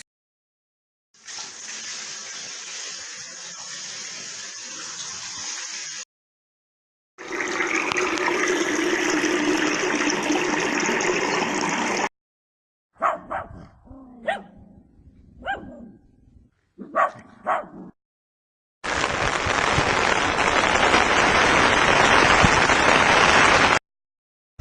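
A run of separate sound-effect clips split by short silences. First a shower spraying, then water running into a washbasin. In the middle a country dog barks about six times in short separate barks. Last comes a loud, even patter of rain falling on an umbrella.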